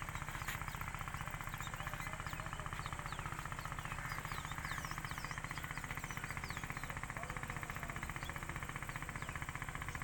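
A motor running steadily with a fast, even chugging pulse, with many short falling bird chirps over it.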